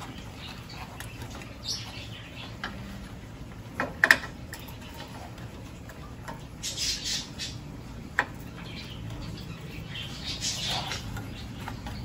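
Toyota Fortuner hood latch assembly being handled and fitted: short scraping and rustling of metal and plastic, with a sharp click about four seconds in and another about eight seconds in.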